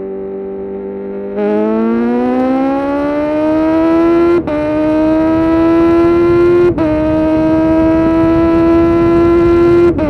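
2020 Kawasaki Z900's 948 cc inline-four through a full titanium SC-Project exhaust, holding a steady note, then opened to full throttle about a second and a half in. The pitch climbs hard, with quick upshifts cutting the note about four and a half seconds in, again near seven seconds, and near the end. It is heard in a road tunnel.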